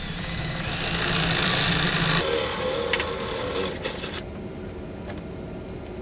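Cordless drill with a 3/8-inch bit enlarging a hole in a metal panel: the motor whine comes up at the start, turns rougher as the bit cuts about two seconds in, and the drill stops about four seconds in, leaving a few light clicks.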